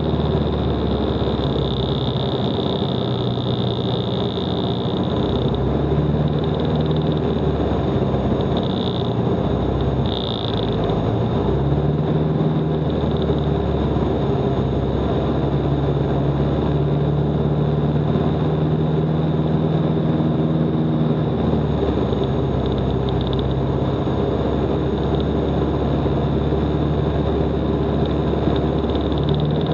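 A Van's RV light aircraft's piston engine and propeller drone steadily in formation cruise, with rushing airflow noise. The engine note steps up slightly in pitch about twelve seconds in and again near the end.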